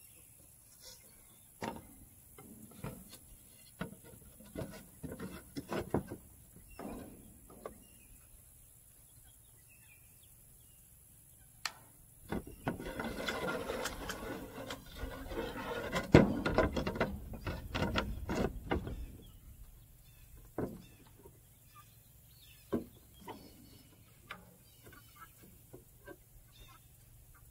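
Wooden boards being handled and fitted: a series of separate knocks and taps, then several seconds of plywood scraping and rubbing against the wooden frame with one sharp knock in the middle, then a few more knocks.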